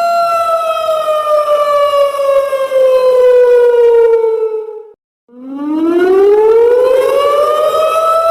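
Siren sound effect in a slow wail: a steady tone slides down in pitch over about five seconds and fades out, breaks off briefly, then winds back up and settles at its steady pitch near the end.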